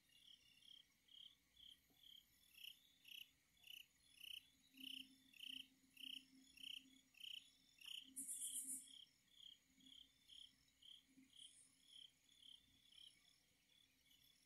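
Insects chirping: a faint, regular run of short chirps, about two or three a second, with a brief high buzz about eight seconds in.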